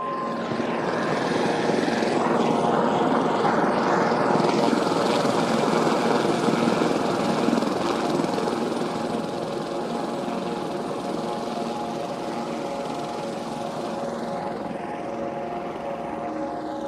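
Helicopter sound effect: rotor and engine noise that starts abruptly, builds over the first few seconds, then slowly fades.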